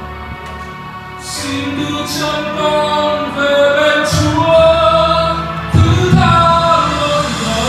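A man singing a Vietnamese Christian song into a microphone over a recorded backing track, with long held notes and strong bass hits from the backing track about four and six seconds in.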